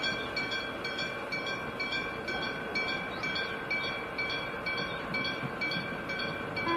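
Railway level-crossing warning bell ringing steadily, about two strikes a second, while a Meitetsu Panorama Car electric train approaches.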